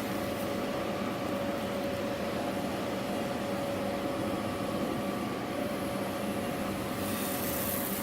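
360 kW Cummins diesel generator set in a sound-attenuated enclosure, running steadily: an even hum with a few constant tones through it.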